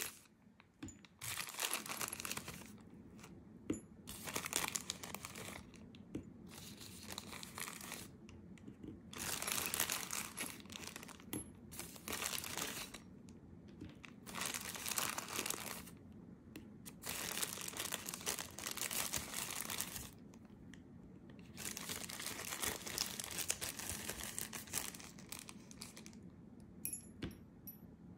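A translucent packing wrapper being crinkled and pulled open by hand. It comes in repeated bursts of a second or a few seconds with short pauses between, and a few light clicks near the end.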